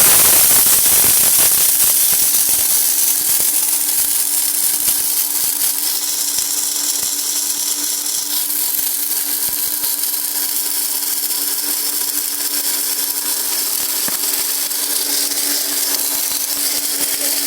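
Electric food processor's motor switched on and running steadily at high speed in the dry-nut grinder cup, a continuous whirring hum with a hiss on top.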